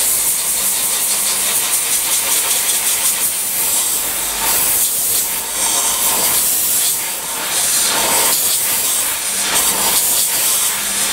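Compressed-air blow gun hissing steadily as it blows on a hot cast-steel towing jaw, cooling it after flame straightening.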